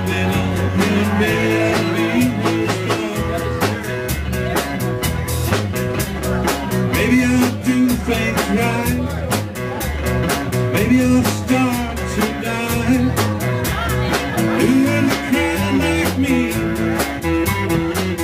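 Live band playing an upbeat country-rock song: electric guitars over a steady drum beat, with a singer at the microphone.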